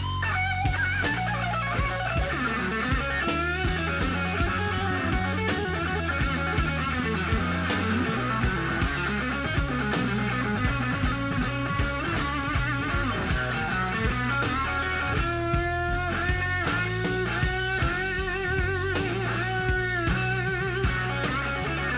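Live slow-blues electric guitar solo over bass and drums, with long bent notes shaken with wide vibrato in the second half.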